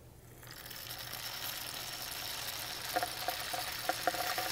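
Dried pinto beans poured from a glass measuring cup into a cardboard rain stick tube, rattling down inside it. A steady rustling rattle starts about half a second in and builds slowly, with a few sharper clicks near the end.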